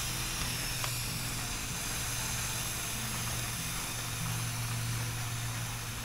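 Aerosol chain lube spraying onto a motorcycle's drive chain in one long, steady hiss.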